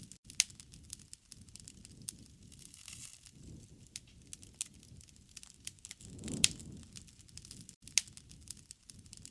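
Campfire crackling and popping: scattered sharp snaps of burning wood over a low rush of flame that swells and fades, with the loudest pops about half a second, six and a half and eight seconds in.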